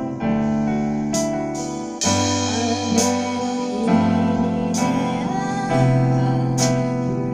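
Acoustic guitar and an electric keyboard playing a slow pop song together live, with a bright accent about every two seconds.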